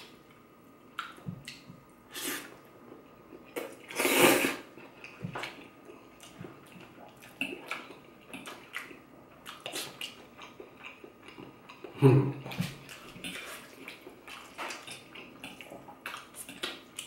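Close-up eating sounds of fettuccine alfredo with shrimp: wet chewing and lip smacking, with a louder noodle slurp about four seconds in and a brief low hum about twelve seconds in.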